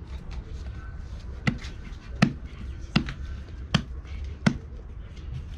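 A ball of naan dough slapped between the hands, five even slaps about three-quarters of a second apart, with lighter pats in between.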